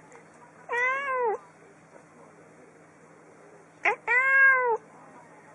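Domestic cat meowing twice, each meow a little over half a second long and rising then falling in pitch; the second is preceded by a very short, sharp chirp.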